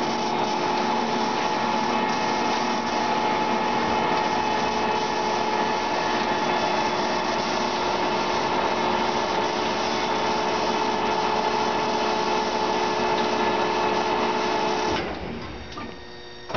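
Metosa E1860 engine lathe running with a steady mechanical whine, the carriage being driven along the bed under power feed. The running sound stops abruptly about fifteen seconds in, and a short knock follows near the end.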